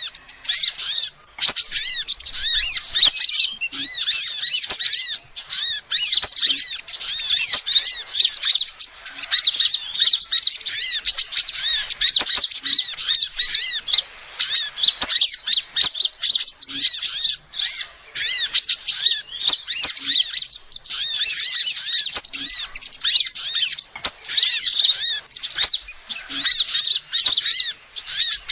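Female sunbird calling: a rapid run of high, thin chirps, repeated in long runs broken by brief pauses.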